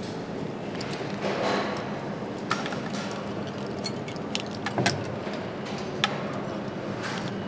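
Motorcycle assembly-line background hum, with scattered sharp clicks and knocks of parts being handled and fitted.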